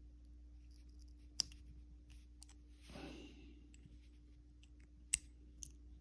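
Small sharp metal clicks from handling a lock's core and follower: two distinct clicks, the louder near the end, with a brief scrape about halfway through and a few faint ticks, over a steady low hum.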